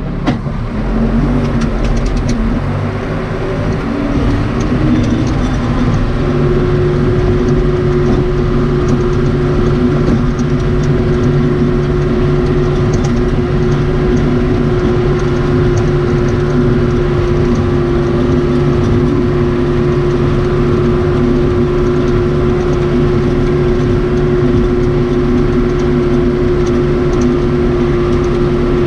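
Cummins 4BT four-cylinder diesel of a 1993 Case 580 Super K backhoe running steadily. A steady high tone joins it about six seconds in.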